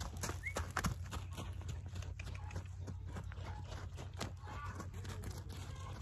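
Hoofbeats of a horse circling on a lunge line over dry, packed dirt: a run of irregular dull thuds, over a steady low hum.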